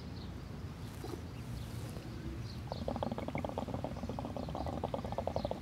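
Hookah water bubbling in a rapid run of gurgles as smoke is drawn through the hose, starting about halfway through.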